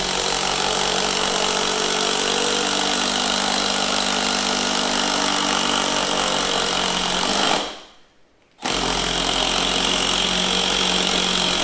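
Milwaukee 12-volt impact driver running free with no load on speed setting 2: a steady buzzing whirr. The trigger is released about seven and a half seconds in, then pulled again about a second later.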